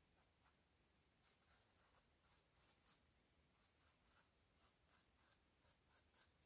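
Pencil sketching on a stretched canvas: faint, short scratching strokes, about three a second.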